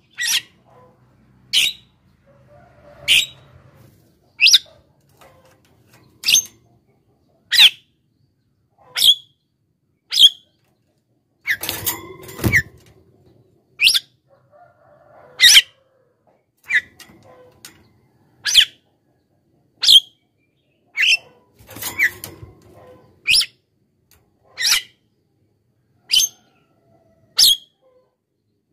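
Javan myna (jalak kebo) calling over and over, one short, sharp call about every one and a half seconds. About halfway through, and again about three-quarters through, a longer, rougher burst breaks the rhythm.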